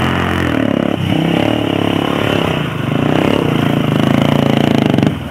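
Small single-cylinder four-stroke off-road engine revving up and down as the machine is ridden hard, with its pitch dropping briefly near the end.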